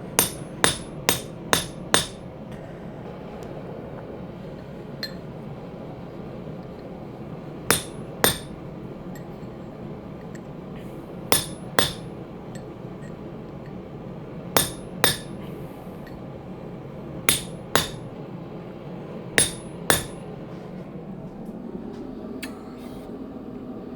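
Hand hammer striking a temporary rebar punch driven into a hot steel billet to punch a hammer eye, each blow a sharp metallic ring. A quick run of five blows opens it, followed by five pairs of blows a few seconds apart, over a steady background hum.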